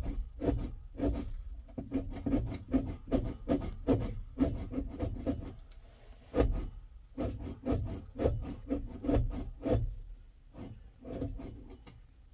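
A newly installed accelerator pedal on a 1965 Ford F100 being pumped over and over, its pivot and linkage giving short rubbing creaks about two or three times a second.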